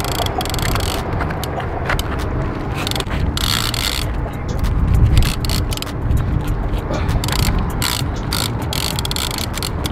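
Heavy fishing reel ratcheting in rapid, irregular clicks over a steady low rumble.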